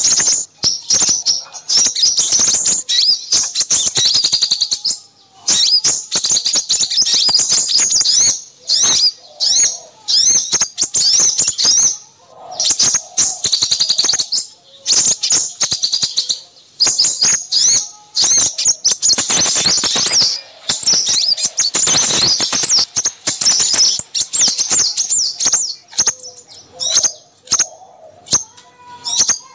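Busy chorus of small songbirds chirping and twittering rapidly in high-pitched runs with brief pauses, a bird-lure recording used to attract crimson sunbirds.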